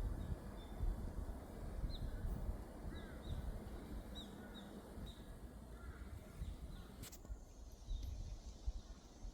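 Birds chirping with short repeated calls over a steady low rumble, like wind or handling on the microphone. A sharp click comes about seven seconds in.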